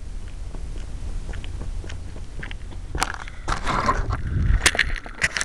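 Grass stems and seed heads brushing and crackling against a small keychain camera's housing and microphone: scattered clicks that thicken into dense rustling and crackling about three seconds in, over a steady low rumble.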